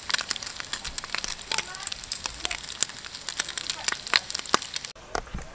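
Bacon frying in a pan, the fat crackling and spitting in rapid, irregular sharp pops.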